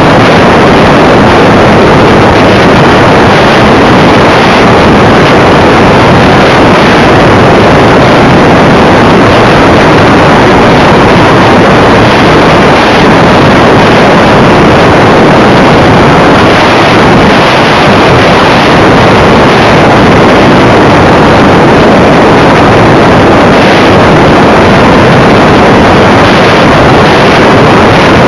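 Loud, steady rush of airflow and drive noise picked up by a camera riding on a radio-controlled model plane in flight, overloading the microphone.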